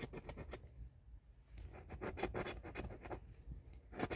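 A coin scraping the coating off a scratch-off lottery ticket in quick short strokes, with a short pause about a second in.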